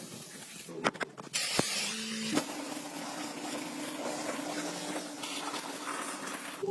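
A steady spraying hiss, like air or liquid sprayed under pressure, starting about a second and a half in after a few sharp clicks, with a faint steady hum underneath.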